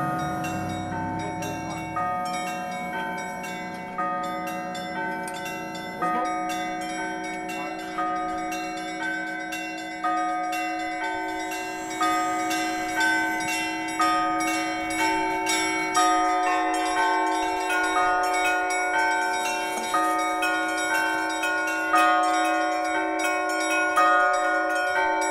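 A set of new bells rung together: a heavier stroke about every two seconds, with quicker strikes of smaller bells ringing between them.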